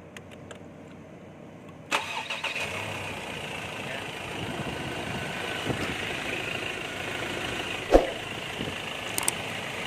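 Ford Ranger engine starting about two seconds in after a fuel filter replacement, then running steadily. A short knock sounds near eight seconds in.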